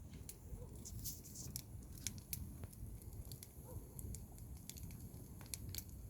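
Wood campfire crackling faintly, with irregular sharp snaps and pops from the burning firewood.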